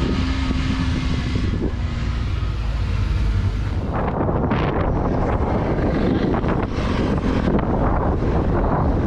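Wind buffeting the microphone while riding in the open back of a small pickup, over the low rumble of the moving vehicle; the wind noise grows rougher about four seconds in.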